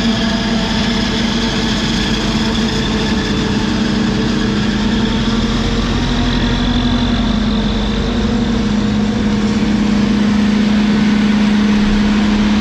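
A heavy machine's engine running steadily, a constant loud hum that swells slightly toward the end.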